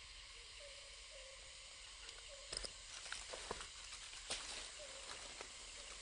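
Faint outdoor ambience with a soft short chirp repeating about twice a second. A cluster of sharp clicks and crackles comes near the middle.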